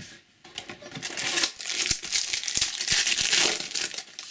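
Crinkling and tearing of a trading card pack's wrapper as it is opened, louder from about a second in to near the end.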